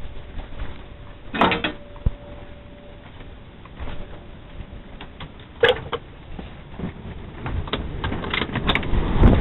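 Storm wind gusting, with a series of sharp knocks and clattering bangs, a few early and a cluster near the end, as the wind grows louder.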